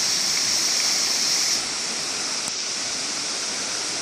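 Steady rush of falling water, the constant roar of a waterfall. It drops slightly in level about a second and a half in.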